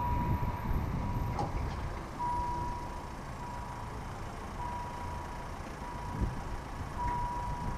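Level-crossing warning bell on a German railway crossing, sounding as a steady electronic tone that repeats about once a second while the crossing closes and its barriers come down.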